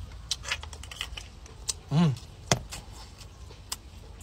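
Scattered small sharp clicks and cracks of cooked shellfish shell being picked apart by hand, with a short hummed voice sound about two seconds in.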